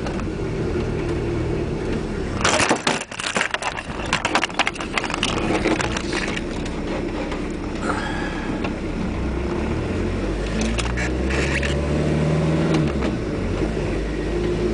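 Diesel van engine running under way, heard from inside the cab. From about two and a half to six seconds in there is a spell of rattling and clattering. About ten seconds in the engine note rises as it accelerates, then drops back near the end.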